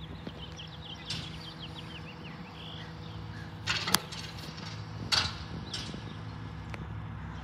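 Rear-loader garbage truck's engine idling with a steady hum, broken by two loud bangs about four and five seconds in at the loading hopper; small birds chirp in the background.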